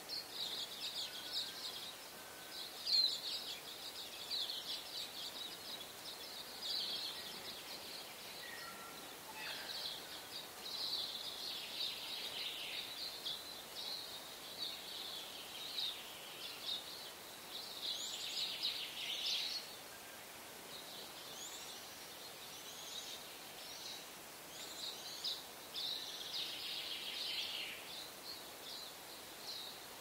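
Small birds chirping and twittering, quick high calls following one another almost without pause, over a faint steady hiss.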